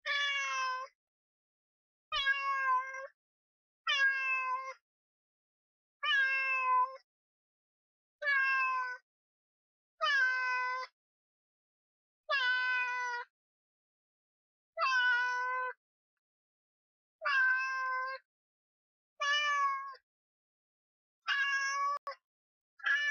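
A cat meowing over and over, about a dozen meows spaced roughly two seconds apart, each under a second long, with silence between them.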